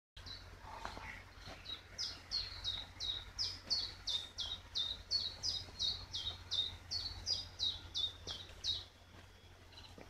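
A songbird singing a long run of short, sharp descending notes, about three a second, alternating between a slightly higher and a slightly lower pitch, stopping shortly before the end. A low steady rumble runs underneath.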